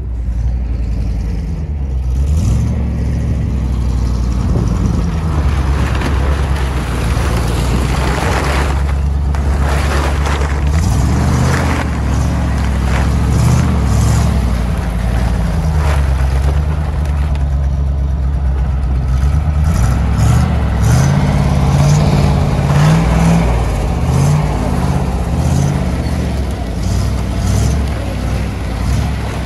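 GAZ truck engine running steadily and being revved up and down several times, as the tipper raises to dump a load of grain.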